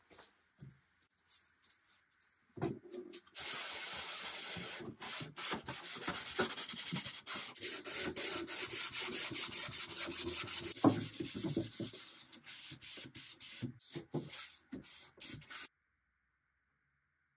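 Green abrasive scrub pad rubbed back and forth over bare wood, working in Restor-A-Finish: a rapid run of scrubbing strokes that starts a couple of seconds in, thins to scattered strokes, then stops shortly before the end.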